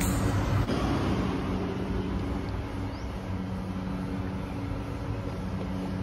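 Steady roadside traffic noise: an even, continuous rumble with a low steady hum underneath.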